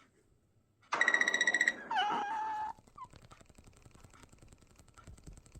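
A domestic cat meowing twice in quick succession about a second in: a harsh first call, then a clearer second one that dips in pitch and levels off.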